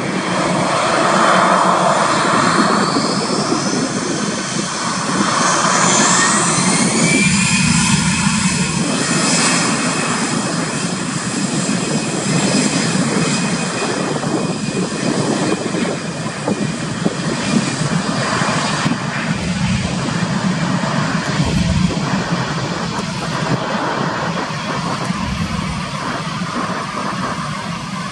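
Airbus A320's two CFM56-5B turbofan engines spooling up to takeoff thrust. A whine climbs steadily in pitch over the first several seconds, then the engines run loud and steady at full power as the jet rolls down the runway.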